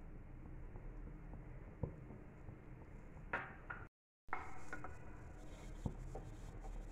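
Dried shrimp frying in a little coconut oil in a non-stick pan, quiet apart from a few light knocks. After a brief dropout about four seconds in, the shrimp is stirred around the pan, giving faint scraping and rustling.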